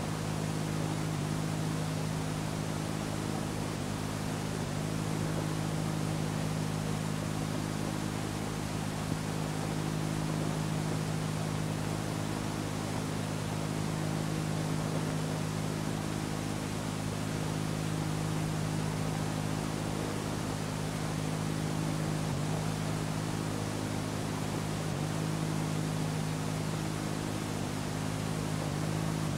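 Steady hiss with a low, even electrical hum and no speech: the background noise of an old 1970s tape recording.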